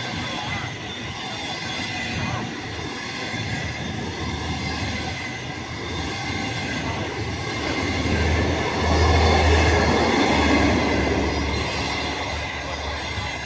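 Passenger train coaches rolling past close by, wheels running on the rails with a steady noise and thin high squealing tones. A low rumble swells to its loudest about two-thirds of the way in, then the sound fades as the last coach goes by near the end.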